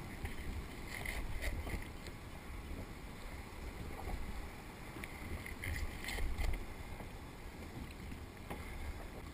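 Muffled handling noise through a GoPro dive housing: a few short knocks and rustles as gloved hands work gear against a plastic kayak, over a low, steady rumble.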